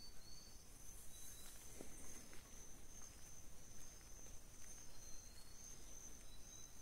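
Quiet rural outdoor ambience dominated by a steady, high-pitched insect trill, with a few faint, short high chirps over it.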